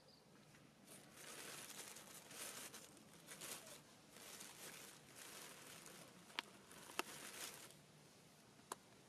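Quiet crinkly rustling of dry straw and leaves stirred by foraging macaques, rising and falling for several seconds, with three sharp clicks in the last few seconds.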